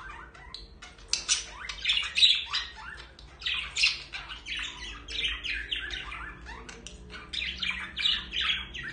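Budgerigars chattering: fast runs of short squawks and chirps, starting about a second in and going on with only brief pauses.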